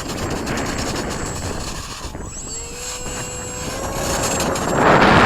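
Motor and propeller of a radio-controlled Mako aircraft whining steadily, the pitch rising a little about half-way through as the throttle comes up, under heavy wind buffeting on the microphone that is loudest near the end.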